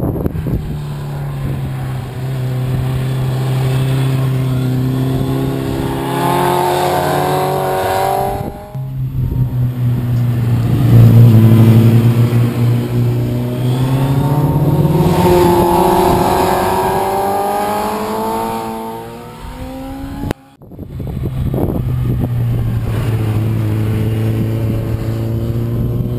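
Sport motorcycle engines, including a Suzuki GSX-R 750 K8's inline-four, passing through a hairpin. Each holds a steady note, then rises in pitch as it accelerates out of the bend. The sound breaks off suddenly twice, between passes.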